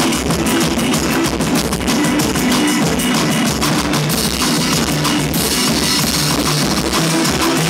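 Live rock band playing loudly: a drum kit with dense drum and cymbal hits over low, shifting pitched notes, the cymbal wash growing brighter about halfway through.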